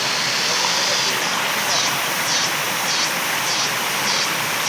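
Waterfall: steady rushing of falling water. About a second in, a high-pitched pulsing joins it, repeating about every two-thirds of a second.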